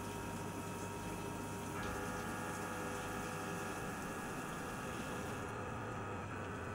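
SYIL X5 CNC mill at work under flood coolant: a steady hiss of coolant spraying onto the workpiece with the spindle and cutter running beneath it. A set of steady tones comes in about two seconds in, and the hiss thins about five and a half seconds in as the spray eases.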